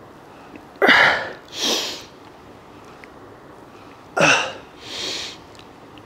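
A man breathing hard with the effort of double cable biceps curls. Twice, a sharp voiced exhale with a falling pitch is followed by a shorter hissing breath without voice, one pair per repetition.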